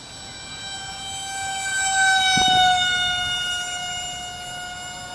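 Electric radio-controlled model airplane flying past: a high-pitched motor whine that grows louder to a peak a little past two seconds in, drops in pitch as it goes by, then fades slightly.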